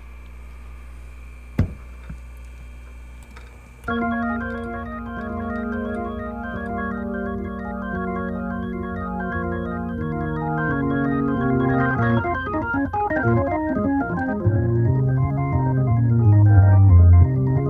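Organ playing sustained chords, starting suddenly about four seconds in after a low steady hum, with a bass line that moves underneath and grows louder toward the end.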